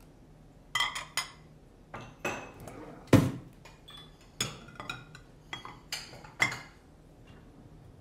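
Dishes and cutlery being handled: a scattered run of sharp clinks and knocks of crockery, with a heavier knock about three seconds in.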